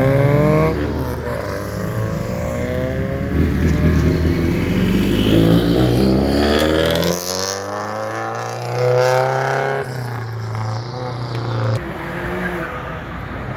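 Car engines revving and accelerating, their pitch rising several times. In the second half one engine holds a steady note for a few seconds and then drops away.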